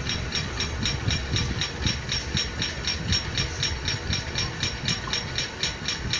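A machine running steadily, with a rapid even ticking of about five ticks a second over a low rumble.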